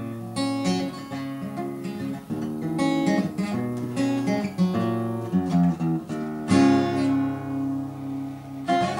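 Solo acoustic guitar playing picked notes and chords with no voice, the closing instrumental of the song. A full chord is struck about two-thirds of the way through and left to ring.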